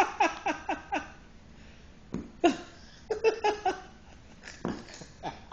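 Giggling laughter: quick runs of short 'ha' sounds, each dropping in pitch, about five a second, coming in three or four spells with short gaps between them.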